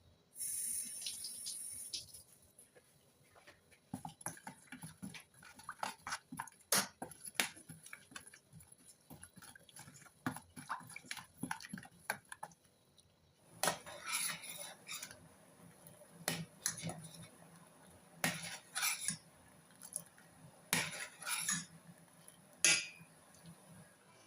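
Kitchen utensils clinking and scraping: a spoon working against a bowl or pan in irregular clusters of sharp clicks, after a short rushing noise near the start.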